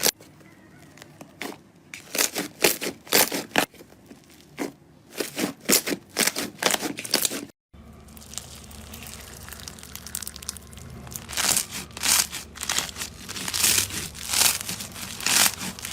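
Slime being squished and pressed by hand, giving quick clusters of crackling, popping clicks. There is a brief break about halfway through.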